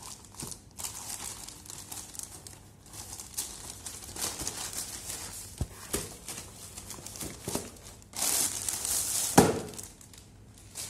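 Plastic courier mailer bag crinkling and rustling as it is handled and the shoe box is taken out. A louder rustle about eight seconds in ends in one sharp knock, as the cardboard shoe box is set down on the floor.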